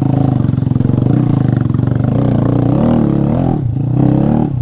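Honda Grom's 125 cc single-cylinder engine pulling under load, its pitch rising and falling several times with the throttle in the second half.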